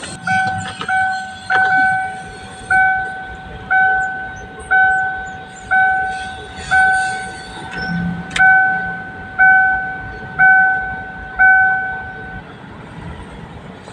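An electronic chime repeating about once a second, about a dozen times, each ring starting sharply and fading away, before it stops near the end.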